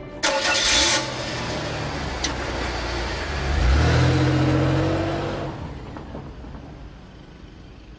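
Sports car engine starting with a loud burst, then running and revving up, its pitch rising, as the car pulls away past and fades into the distance.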